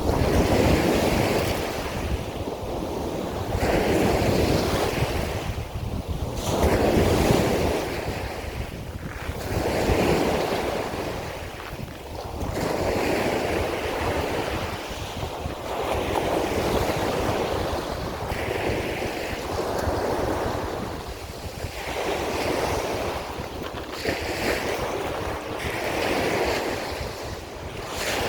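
Waves of the Sea of Azov washing in one after another, a fresh swell of surf about every three seconds, with wind rumbling on the microphone.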